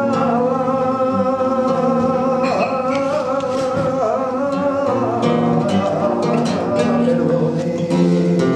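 Male flamenco singer holding a long, wavering sung phrase over flamenco guitar accompaniment. Near the end the voice drops away and the guitar carries on alone.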